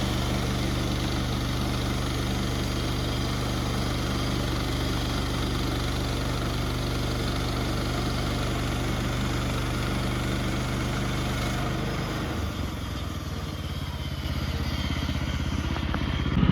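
Portable sawmill's gasoline engine running steadily, its tone shifting and turning rougher about twelve seconds in.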